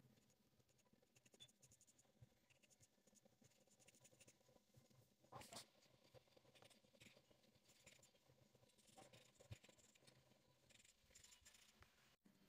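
Mechanical pencil lead scratching faintly on sketch paper in short strokes, with one louder stroke about five and a half seconds in.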